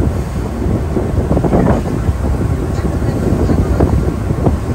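Wind buffeting the microphone on a ferry's open deck, gusting unevenly, over the steady low rumble of the ship's engine under way.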